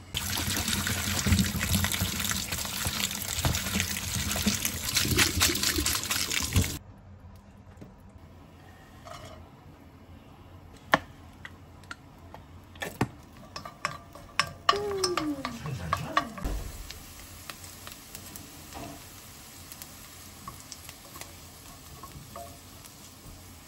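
Kitchen tap running hard into a sink for about seven seconds, then shut off abruptly. It is followed by scattered knocks and clinks of kitchen work, with one short falling tone about two-thirds of the way through.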